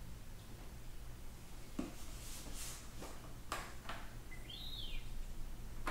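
Quiet sound effects played from the electronic X-wing pilot helmet's built-in speaker: several quick whooshing swishes about two seconds in, then an electronic whistle that rises and falls near the end.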